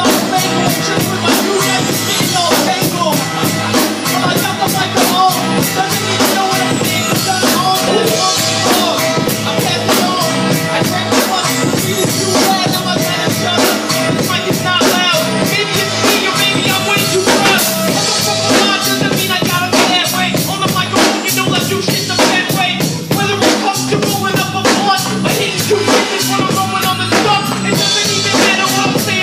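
Hip-hop instrumental beat playing loudly, with a steady drum-kit rhythm and bass drum.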